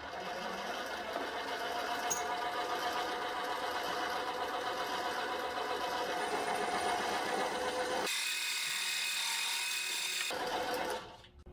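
Small metal lathe running with a parting tool cutting into round bar stock held in a collet, a steady machine whine over cutting noise. About eight seconds in, the sound turns thinner and brighter for about two seconds, then stops just before the end.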